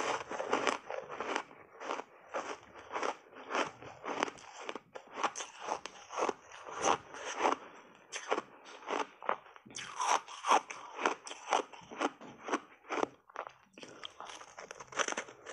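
Crunchy buckwheat ice bar being bitten and chewed right at lapel microphones: a continuous run of sharp, crackling ice crunches, about two a second, with a louder fresh bite about ten seconds in and another near the end.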